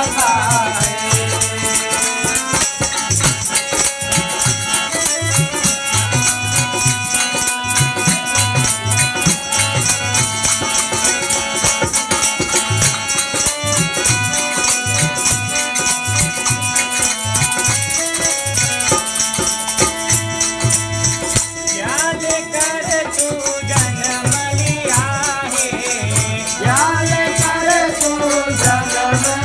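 Fiji kirtan music: a harmonium playing held, steady notes over fast, even rattling percussion and a repeating low drum beat. A voice sings at the very start and again through the last several seconds.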